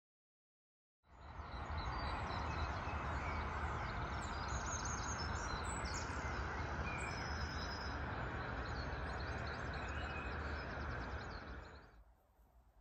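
Outdoor garden ambience: birds chirping and singing over a steady rushing background noise. It starts about a second in and fades out near the end.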